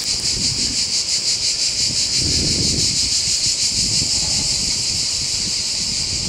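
Cicadas in the trees below, a steady high-pitched buzzing chorus with a fast, even pulse. Wind buffets the microphone in low gusts, strongest about two to three seconds in.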